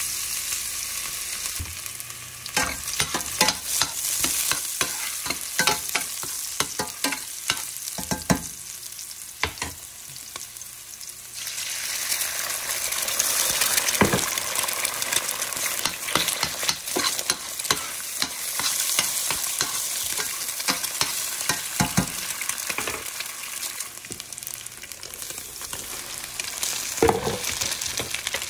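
Chopped garlic frying in hot oil in a stainless steel pan: a continuous sizzle with frequent sharp clicks and scrapes from a utensil stirring against the pan. About twelve seconds in, the sizzle turns louder and brighter as eggs go into the hot oil.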